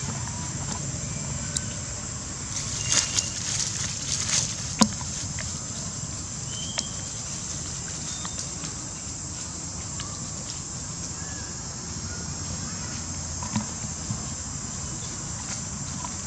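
Outdoor ambience under a steady high hiss, with a cluster of dry-leaf crackles and clicks about three to five seconds in, a few more near the end, and a couple of short bird chirps.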